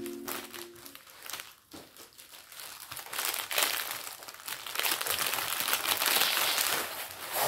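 Plastic packaging of a diamond painting kit crinkling and rustling as it is handled, busier and louder from about three seconds in. A few notes of music end about a second in.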